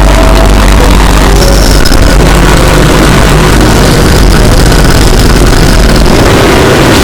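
Mock Emergency Alert System alarm audio, over-amplified until it distorts: a dense, clipped noise held at full loudness, with faint steady tones running through it.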